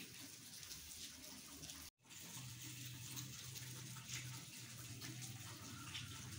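Faint, steady background hiss with a low hum, cutting out completely for a moment about two seconds in.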